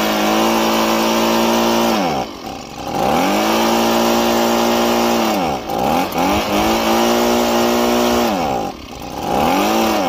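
Two-stroke engine of a Stihl handheld leaf blower running at high speed and bogging down three times, its pitch sagging and climbing back each time, as fogging oil is sprayed into its intake to winterize it.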